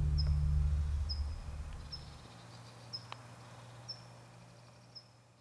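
A low soundtrack drone dies away over the first two seconds, leaving a short, high chirp that repeats about once a second. The whole sound fades steadily toward silence.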